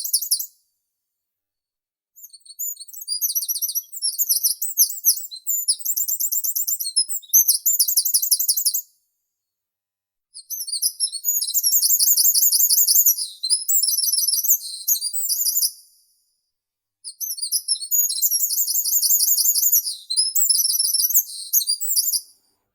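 A songbird singing long, high-pitched phrases of rapid trills and chirps. There are three songs, each about five to six seconds long, with short silent pauses between them.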